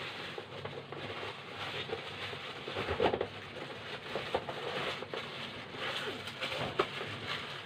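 Cardboard box and packaging being handled and tugged while trying to pull a microphone stand out of it: irregular rustling, scraping and small knocks.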